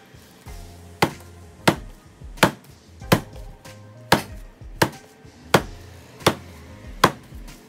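Bread dough being slapped down hard onto the counter, nine sharp smacks about one every 0.7 seconds, starting about a second in. Background music plays throughout.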